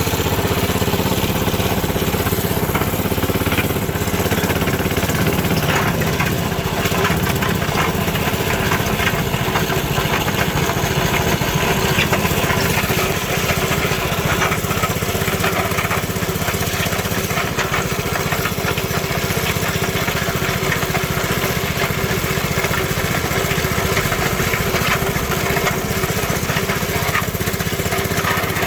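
Coleman mini bike's small single-cylinder engine running steadily while being ridden, with an odd noise that appears only when riding; the rider suspects the clutch.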